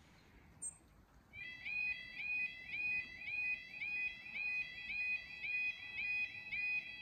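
A UK level crossing's audible warning alarm starts about a second in: a loud, rapid warbling tone that repeats several times a second as the road lights begin flashing to warn of an approaching train.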